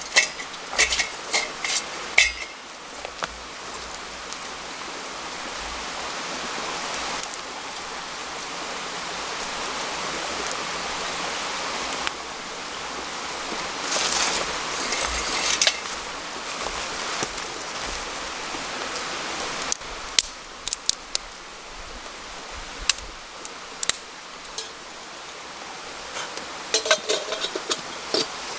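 Steady rushing hiss of running water, with scattered clicks and knocks of camp gear being handled in short clusters.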